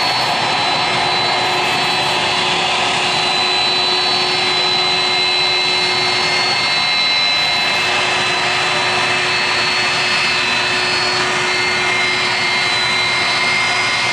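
Airbus A330-300's General Electric CF6-80E1 turbofan engines at low taxi thrust, a steady jet rumble and hiss with high, steady whining tones, as the airliner turns onto the runway.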